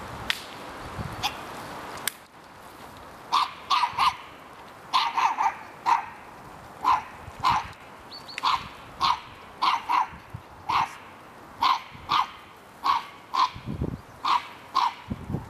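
A Norfolk terrier barking in a long series of short, sharp barks, starting about three seconds in and keeping up at roughly one to two barks a second, sometimes in quick pairs.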